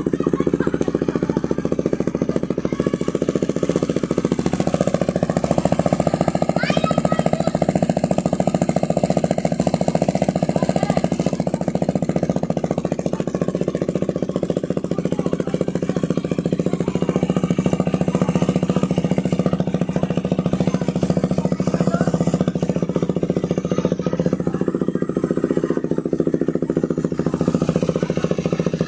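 KTM 390 Duke single-cylinder engine idling steadily through a Remus S-flow full exhaust system.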